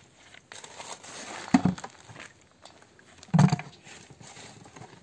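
Boiled sour cherries scooped from the pot and tipped into a metal pan: a wet slosh, then two short, heavy thuds about two seconds apart.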